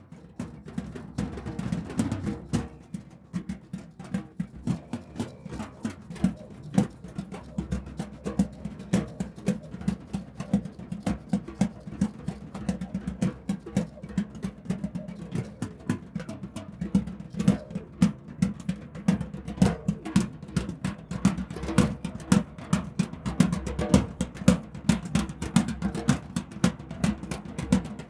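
Drum circle: several drums played together in a dense, steady rhythm of many strikes a second, the deep drum tones strongest.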